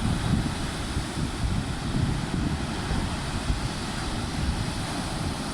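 Wind buffeting the microphone in an uneven low rumble, over the steady wash of surf.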